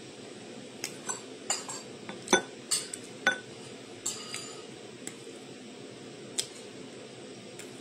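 Cutlery clinking against dishes, about a dozen light, irregular strikes and taps, the loudest one about two seconds in.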